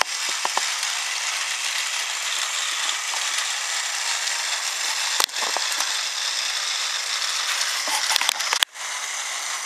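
Battery-powered Trackmaster Thomas toy engine running along plastic track, with a steady gear whir and rattle. A sharp click comes about halfway through, and a few more clicks come near the end, followed by a brief dip in the sound.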